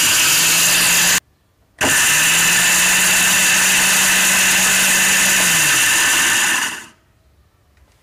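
Electric kitchen grinder grinding a dry mix of dried lentils into a coarse powder. It runs loud and steady, cuts out about a second in, starts again half a second later and spins up, then runs for about five seconds before winding down.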